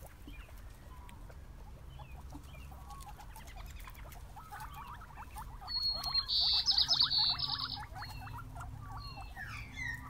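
Guinea pigs chewing grass, a rapid dry crunching that grows busier about halfway through. About six seconds in, a loud, high, pulsing buzz runs for about two seconds.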